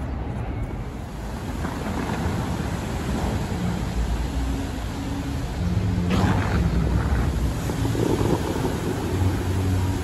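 Steady rushing water noise from the Bellagio fountain's jets spraying and falling back on the lake, a little louder from about halfway, with wind buffeting the microphone.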